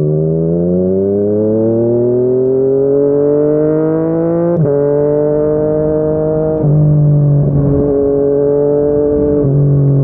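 Yamaha MT-09's three-cylinder engine through a Yoshimura R55 slip-on exhaust, pulling hard with its pitch climbing steadily for about four and a half seconds. Then a quick upshift drops the note, and it settles into a steady cruise with a couple of brief dips in the engine note.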